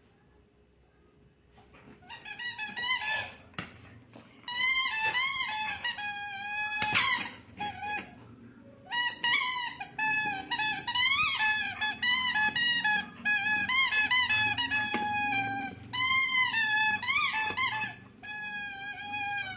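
A dog's squeaky rubber toy, squeezed over and over, giving long, wavering, high-pitched squeals in repeated runs from about two seconds in.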